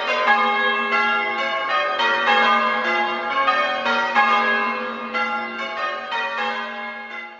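A ring of six church bells in A-flat (tenor 9-3-12 cwt) change ringing, one bell striking after another in a steady run with the tones overlapping as they ring on. The ringing fades away near the end.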